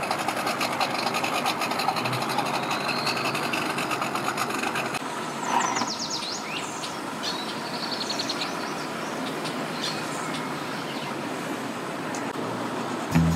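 Outboard boat motors idling and running slowly, a steady mechanical rumble mixed with water noise. A few short, high chirps come about halfway through.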